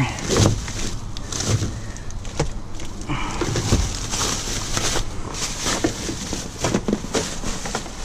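Plastic grocery bag rustling and plastic Gatorade bottles knocking together as they are handled, in short irregular clatters, over a steady low rumble.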